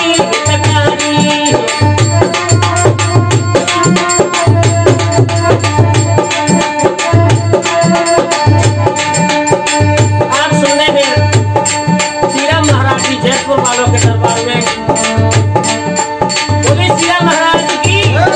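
Rajasthani folk devotional music. A dholak drum keeps up quick strokes with deep bass strokes about once a second, under the held notes of a harmonium. A man's singing voice comes in only in short phrases.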